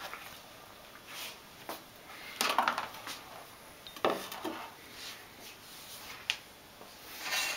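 Kitchenware being handled on a counter: bowls and a knife moved and set down on a cutting board, giving a few scattered short knocks and scrapes, with a sharp click about six seconds in.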